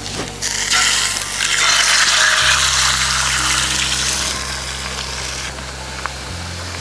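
Food sizzling in a hot pan, the hiss swelling about half a second in and dying away after about five seconds, over background music with low sustained notes.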